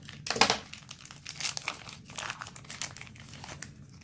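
A trading-card pack's plastic wrapper crinkling and tearing as it is opened, in irregular bursts with the loudest rip about half a second in.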